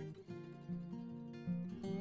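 Background acoustic guitar music, plucked notes and strums.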